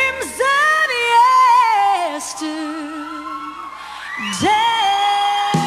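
A woman singing a slow song with vibrato. She goes quieter in the middle, then rises into a long held note near the end.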